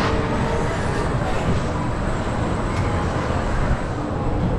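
Cobra's Curse spinning coaster car rolling slowly through the station on the track's rubber drive tyres, a steady mechanical rumble.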